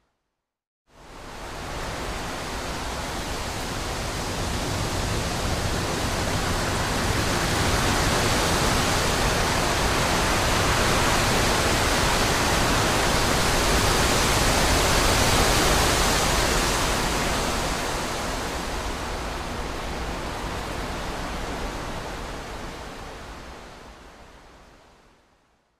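Wind blowing through trees: an even rushing noise that fades in about a second in, swells gradually to its loudest around the middle, then fades away near the end.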